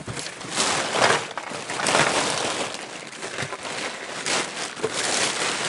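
Plastic bags and paper being rummaged through by hand, a continuous crinkling rustle with sharper crackles now and then.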